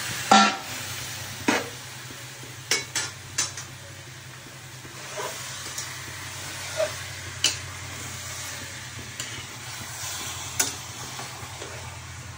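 Chicken frying and sizzling in spice masala in a pan while a spatula stirs it, knocking and scraping against the pan: one sharp knock about half a second in, then scattered taps. A low steady hum runs underneath.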